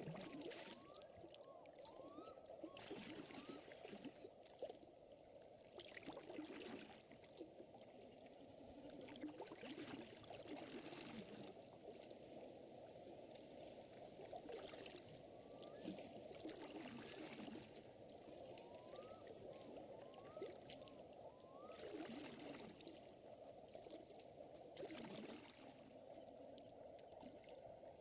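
Quiet lake water lapping and trickling, coming in soft swells every two to three seconds. Faint short rising chirps come in small groups of three or four, about a second in and again past the middle.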